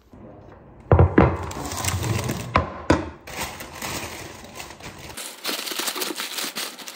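Crinkling, crackling handling noise with several sharp knocks in the first few seconds, as a paper bakery bag and a crusty loaf are handled and torn open.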